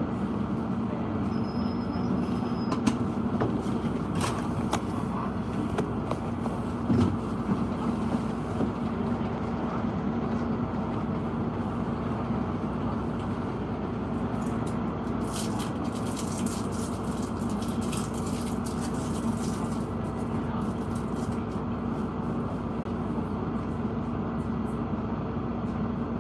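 Steady street traffic noise: a constant low hum under an even wash of sound, with a few faint clicks.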